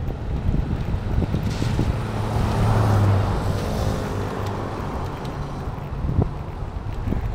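A motor vehicle passing close by on the road, its engine and tyre noise swelling to a peak about three seconds in and then fading. Wind buffets the microphone throughout.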